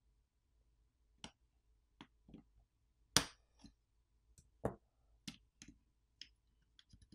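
Light clicks and taps of small smartphone parts being handled: fingers working the bottom speaker module loose from the phone's plastic and metal frame. About a dozen scattered ticks, the sharpest about three seconds in.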